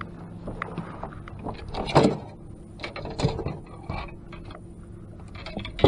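Fishing gear being handled in a boat: scattered small clicks and knocks, with sharper knocks about two seconds in and again near the end.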